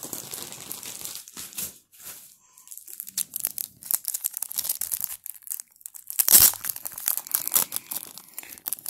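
Clear soft plastic card sleeves crinkling and rustling in the hands as a stack is handled and pulled apart, in short irregular crackles with one louder crinkle about six seconds in.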